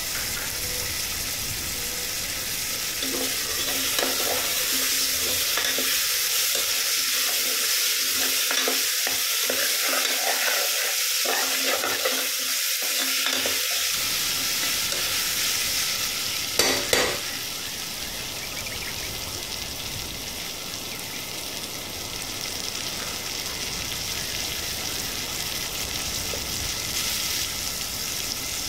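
Onions, green peas and green chillies sizzling in oil in an aluminium pressure cooker as a spoon stirs them. Two sharp knocks about seventeen seconds in, the spoon striking the pot.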